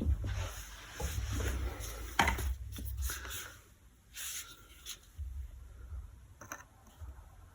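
Irregular scraping and rubbing of tools and parts being handled, with a sharp knock about two seconds in and a lighter one about four seconds in.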